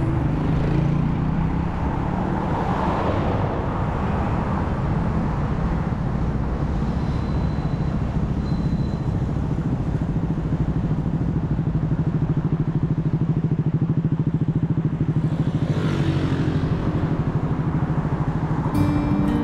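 Road traffic: a steady motor-vehicle engine drone, with vehicles passing in two swells, about three seconds in and again near the end.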